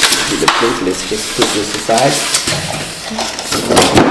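Polystyrene foam packing and plastic wrap being pulled out of a cardboard box, rustling and scraping with many sharp crackles.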